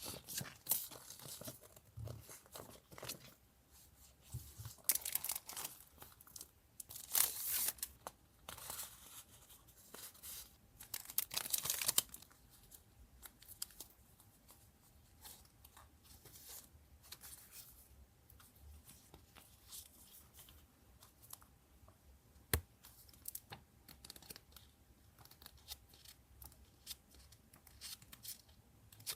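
Paper being torn by hand, several long rips in the first twelve seconds, then quieter rustling of paper with light clicks and taps.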